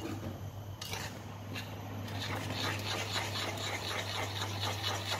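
Utensil stirring flour into a butter, sugar and egg batter in a glass bowl: soft, rhythmic scraping strokes, several a second, building up about two seconds in, over a steady low hum.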